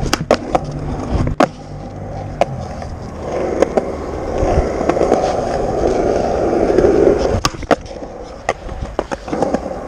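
Skateboard rolling, its wheels running, with sharp clacks of the board striking the ground during a nose manual attempt. The loudest clacks come about a second and a half in and again about seven and a half seconds in, with smaller clicks near the end.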